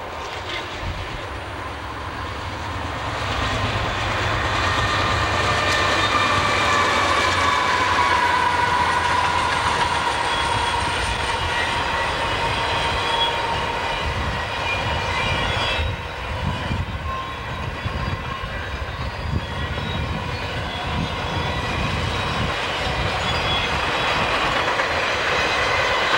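A train passing at close range. Its wheels clatter rhythmically over the rail joints, growing louder through the second half, and steady high ringing tones carry above the rumble.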